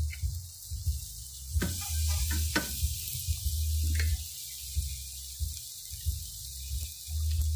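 Steaks sizzling on a charcoal grill grate over glowing coals, with a few crackling pops as butter drips onto the coals. A low rumble comes and goes underneath.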